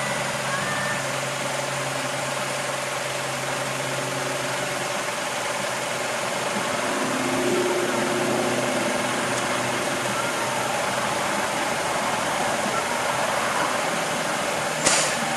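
Car engine idling steadily, with a steady hum. A single sharp click comes near the end.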